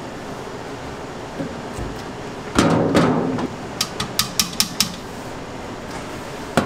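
Metal clattering as square cooking-oil tins are handled over a wide steel frying pan, followed by a quick run of about seven sharp metal clicks, over a steady background hum.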